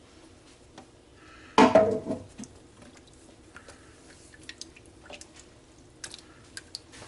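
Kitchen utensils on a slow cooker crock as meatballs are stirred into their sauce: one loud clatter about a second and a half in, then small scattered clicks and knocks.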